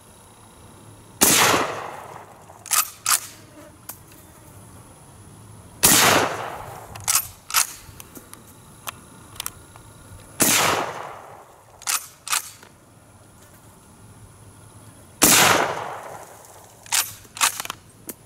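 Four rifle shots from a Schmidt-Rubin 1889 straight-pull rifle firing handloaded GP90/23-type rounds, a little under five seconds apart, each with a trailing echo. Between shots come two short sharp clicks, the straight-pull bolt being cycled.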